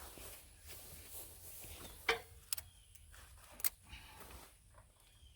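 Wire cutters snipping through plastic zip ties, three sharp snaps over about a second and a half.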